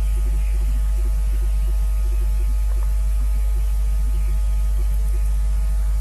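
Loud, steady electrical hum with a flickering low buzz riding over it.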